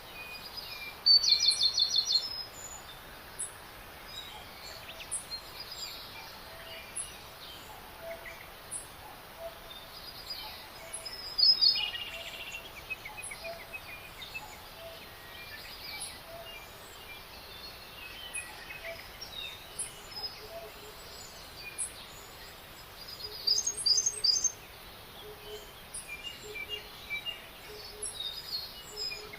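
Several songbirds singing and chirping, with loud trilled phrases about a second in, near the middle and a few seconds before the end, over a steady background hiss.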